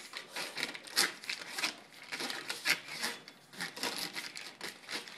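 Irregular rustling and light clicking as hands handle an electrical cord and plug box, feeding the cord down inside a metal mounting pole.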